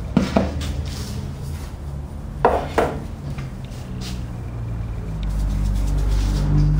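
A few sharp knocks and clinks from a stainless steel mixing bowl being handled on a floured work board, the loudest two close together about two and a half seconds in. A low steady hum comes up in the second half.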